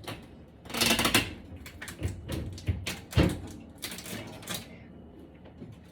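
Scattered clicks and knocks of household handling, with a rustling burst about a second in and a louder thump about three seconds in.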